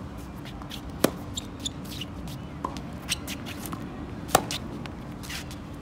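Tennis racket striking the ball in groundstroke practice: sharp pops, the loudest about a second in and again about four and a half seconds in, with fainter ball bounces and hits between.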